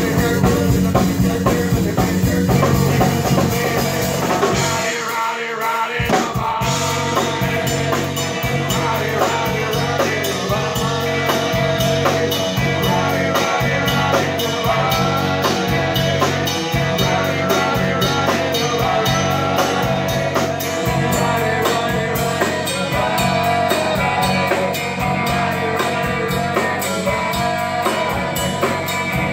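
Rock band playing live: electric guitar, electric bass and drum kit. About five seconds in the bass and drums drop out for a moment, then the band comes back in on a steady beat.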